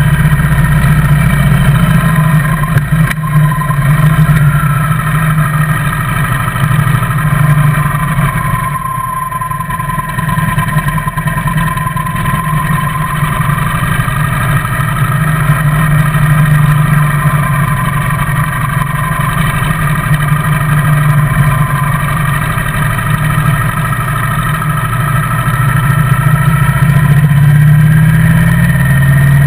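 Motorcycle engine running under way, heard up close from the bike itself, its pitch drifting up and down with the throttle. It eases off and drops in loudness about eight seconds in, then pulls harder and louder near the end.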